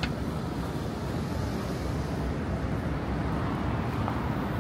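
Steady city street noise, a low even rumble of traffic, with a brief high click right at the start.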